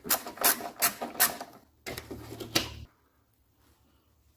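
Ratchet wrench clicking while engine-mount bolts are worked loose: a run of sharp clicks about half a second apart, then a low steady hum for about a second, then near silence.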